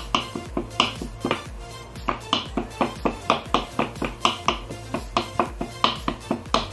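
Kitchen knife tapping rapidly on a wooden cutting board as it scores a thin slice of raw beef, about five quick knocks a second, over background music.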